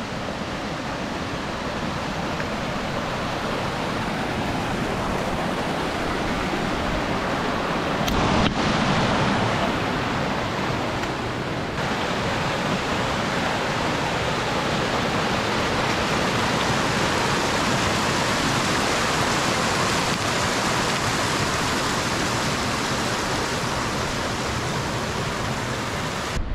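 Rushing water, a steady even hiss, with a brief rise in level about eight seconds in.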